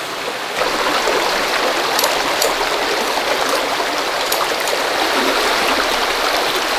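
Shallow rocky creek running steadily over stones, a continuous babbling rush of water.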